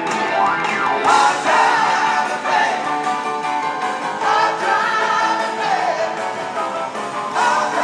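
Blues-rock band playing live, with a sung vocal line over guitar and the full band.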